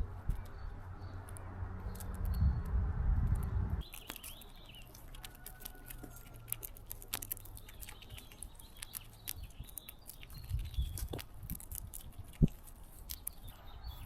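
Low rumbling noise for the first few seconds that stops abruptly, then small birds chirping faintly amid many sharp clicks and taps.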